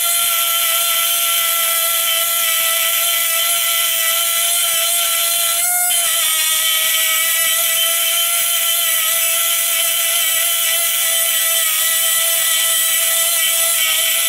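Pneumatic micro die grinder running with a steady high whine while its white mounted grinding stone bears on the end of a metal tube, adding a grinding hiss. About six seconds in the stone briefly lifts off and the whine rises a little, then it settles back under load.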